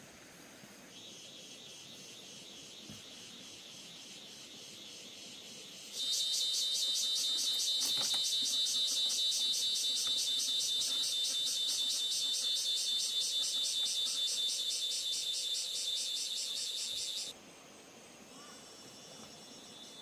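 Insects singing: a high-pitched, rapidly pulsing chirr. A fainter one runs from about a second in; a much louder one starts suddenly about six seconds in and cuts off abruptly about eleven seconds later.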